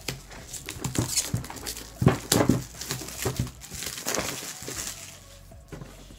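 Plastic shrink wrap crinkling and rustling in irregular bursts as fingers pick at it and pull it off a cardboard game box, with sharper crackles about a second and two seconds in.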